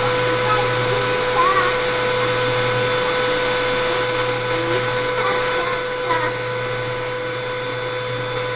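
Vacuum cleaner running with a steady whine, its hose nozzle worked over a doormat.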